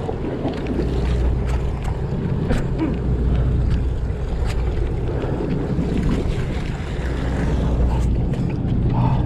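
Steady low drone of a sportfishing boat's engine, with wind on the microphone and ocean water sloshing; a few faint clicks.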